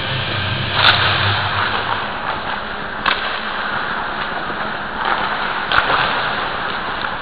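Ice hockey rink noise picked up by a camera taped to a goalie's helmet: a steady rushing hiss with three sharp clacks, about one, three and nearly six seconds in, and a louder scraping rush around five seconds in.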